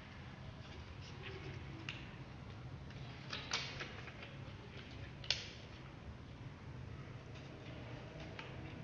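Scissors snipping paper slips and paper being handled: scattered short snips and clicks, the sharpest a quick cluster about three and a half seconds in and a single sharp click a little past five seconds, over a steady low hum.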